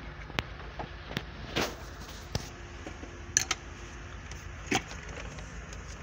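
Sharp plastic clicks and knocks, about eight of them at uneven spacing, as the dashboard trim and connectors of a Land Rover L322 are pried and pulled loose by hand. A steady low hum runs underneath.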